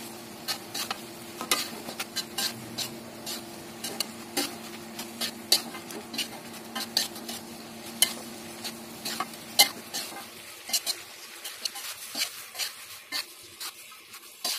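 Stir-frying noodles in a wok: a metal spatula scrapes and clinks irregularly against the pan, several knocks a second, over a light sizzle of frying.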